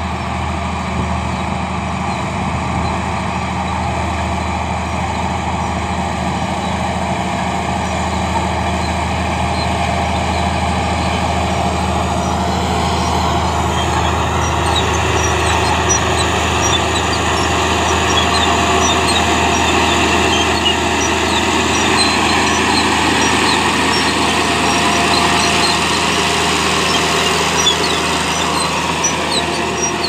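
Komatsu D50A crawler bulldozer's diesel engine running steadily under load as it pushes a pile of sandy soil, getting louder as it comes closer. Short high squeaks and clinks appear from about halfway.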